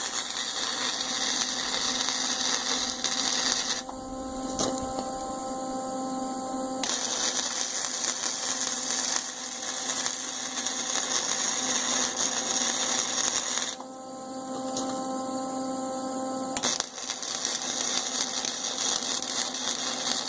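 Electric arc welding: a steady, loud crackle and hiss as a washer is welded onto a steel tractor lift arm. The arc stops twice for about three seconds each, leaving a steady hum, then starts again.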